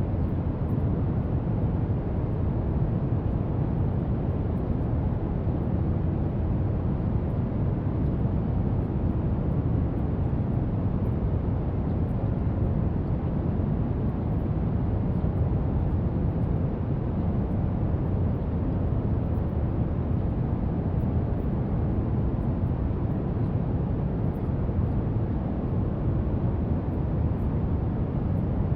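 Steady brown noise: an even, deep hiss, strongest in the low end and darker toward the top, unchanging throughout.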